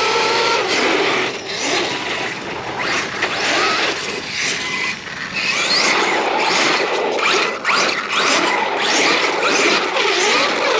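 Arrma Kraton 8S RC truck running on 8S LiPo at full power: its brushless motor whines up and down in pitch as it repeatedly accelerates hard and backs off, over a steady rush of drivetrain and tyre noise.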